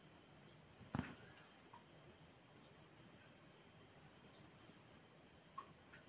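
Faint, steady high-pitched trilling of night crickets, with a single sharp knock about a second in and a small tick near the end.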